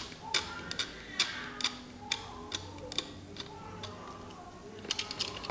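Cutter blade scraping the coating off a copper trace on a phone's circuit board: short scratchy clicks, about two a second.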